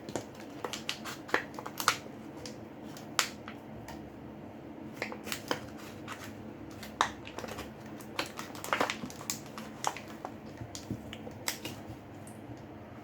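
A pry tool working under the edge of a smartphone's glued screen: irregular small clicks, ticks and crackles, a few of them sharp and loud.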